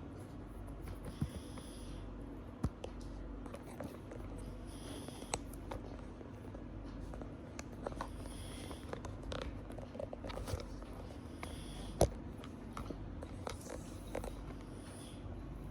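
Sleeping cat snoring, a soft hissing breath about every three and a half seconds, five in all, over scattered small clicks with one sharper click about twelve seconds in.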